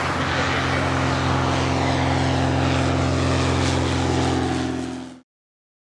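Ikarus C42 ultralight's engine and propeller running steadily at climb power, a constant hum that fades out quickly about five seconds in.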